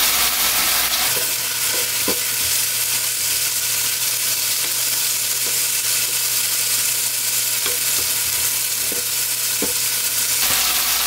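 Boneless chicken pieces with green onion and chili sizzling in oil in a nonstick pan, stirred and turned with a wooden spatula that clicks and scrapes against the pan now and then. The chicken's water has cooked off and it is frying in the fat left in the pan on medium heat.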